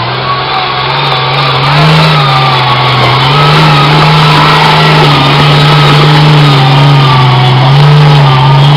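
1987 Jeep Cherokee's engine revving hard under load on a muddy hill climb, its pitch rising over the first couple of seconds and then wavering up and down as the tyres fight for traction.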